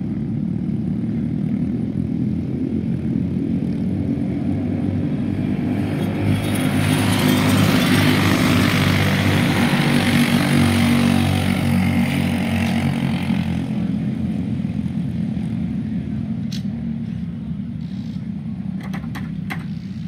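Racing go-kart engines running at speed around the track, a steady drone from the pack, with one kart passing close by in the middle so the sound swells and then fades away.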